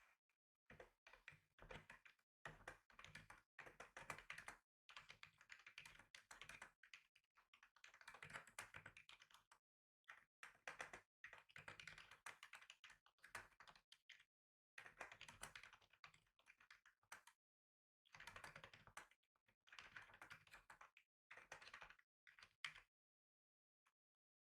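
Typing on a computer keyboard: quick runs of key clicks lasting a few seconds each, broken by short pauses.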